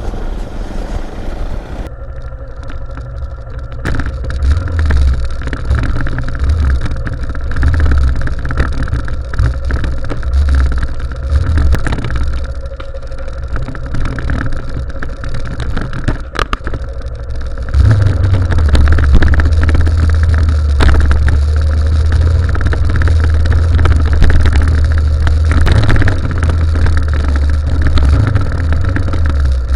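Motorcycle engine running under way, rising and falling with the throttle, with heavy wind rumble on the microphone that grows louder about two-thirds of the way through.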